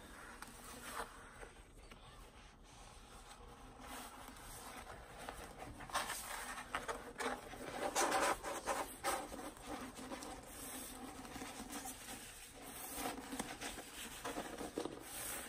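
A rolled diamond painting canvas and its protective sheet rustling and rubbing as it is handled and unrolled, loudest about halfway through.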